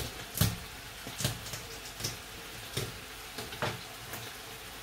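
A knife cutting food on a cutting board: about five separate, sharp knocks at uneven intervals.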